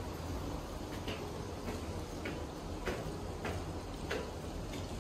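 Wind buffeting the microphone as a steady low rumble, with light clicks repeating a little under twice a second.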